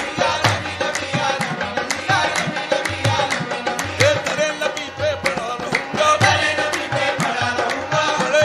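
Qawwali music: tabla playing a brisk, steady rhythm under a wavering melodic line.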